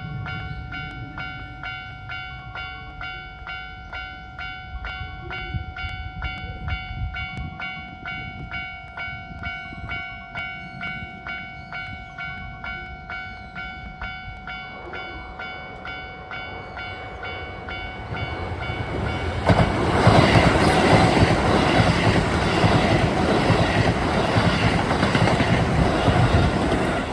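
Japanese level-crossing warning bell dinging in a steady, evenly repeated rhythm. A Keisei 3400 series train then approaches and passes at speed without stopping, its wheel and running noise growing from about fifteen seconds in and loud from about twenty seconds in, drowning out the bell.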